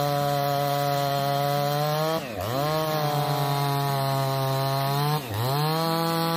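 Large long-bar chainsaw running at high revs, sawing through oak with a steady engine note. Twice, about three seconds apart, the pitch sags briefly and climbs straight back.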